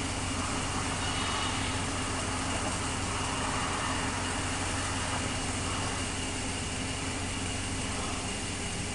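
Diesel locomotive engine running steadily at low throttle, a constant low drone.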